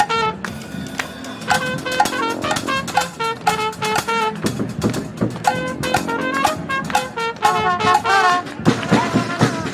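Brass band playing a lively tune with drums: short, punchy brass notes over steady drum hits, with a flurry of quick notes near the end.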